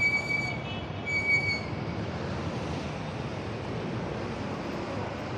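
Steady city street traffic noise, with two short high-pitched squeals in the first two seconds, each lasting about half a second.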